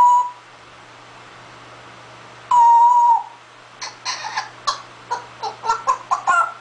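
Pet parrot vocalizing: a loud, flat whistled note at the start and another about two and a half seconds in, then a quick run of short chattering calls.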